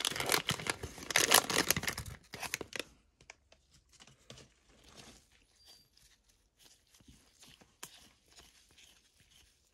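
Plastic wrapper of a Panini Prizm football card value pack crinkling and tearing as the pack is opened, for about the first three seconds. After that, only faint clicks and rustles of the cards being handled.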